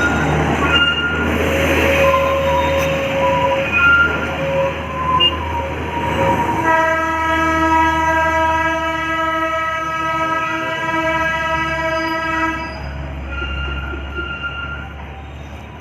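Darjeeling Himalayan Railway toy train running, with short high squeals over the running noise. About seven seconds in, the train sounds one long horn blast lasting about six seconds.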